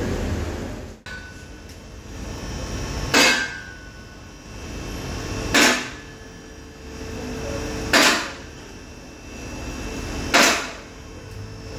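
Repeated tool work on the underside of a car at the oil pan: four short, loud bursts about two and a half seconds apart, each led in by a gradual swell of sound.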